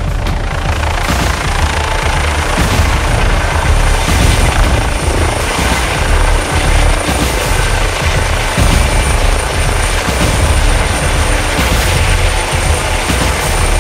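Eurocopter EC135 helicopter hovering low with its rotor turning: steady loud rotor and turbine noise with a low pulsing beat and a thin high whine.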